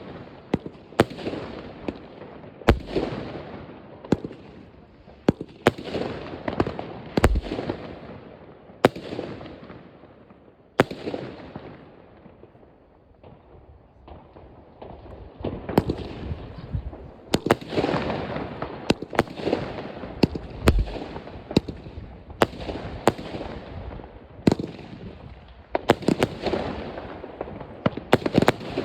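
New Year's Eve fireworks: a steady barrage of sharp bangs and crackling from many shells and firecrackers going off at once, thinning out briefly in the middle before growing dense again.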